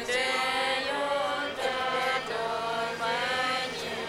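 A crowd of Tibetan voices singing a slow chant in unison, in long held phrases.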